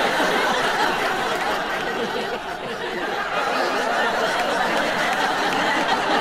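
Large audience laughing together at a punchline, a steady wash of many voices at once.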